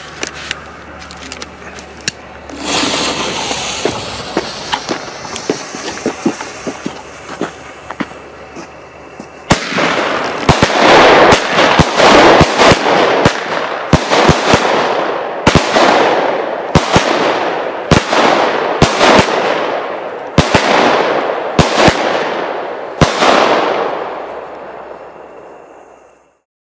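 12-shot consumer fireworks cake (Xplode GRIP, 18 mm calibre): the lit fuse hisses for several seconds, then about a dozen shots fire roughly a second and a quarter apart. Each shot is a sharp report followed by a fading rush of noise from the burst, and the volley ends a second or so before the end.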